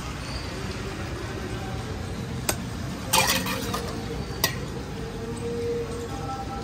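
A street-food stall's utensils clinking and knocking, a few sharp strikes about two and a half, three and four and a half seconds in, over a steady background of street noise.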